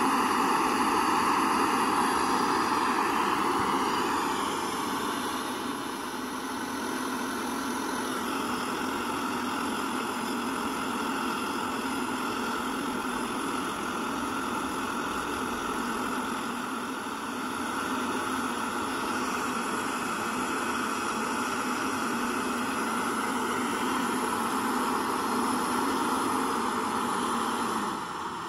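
Small screw-on gas-canister backpacking stove burning at full flame under an aluminium pot of water, a steady hiss of the burner as the water comes up to a rolling boil. The level drops right at the end as the gas is turned down.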